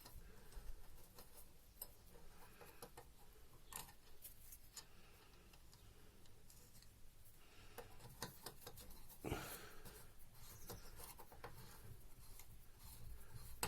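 Faint, scattered clicks and scrapes of small metal parts being handled as the injector nut is screwed down to press the multiplier piston into a Bosch common rail injector body, with one louder knock about two-thirds of the way through.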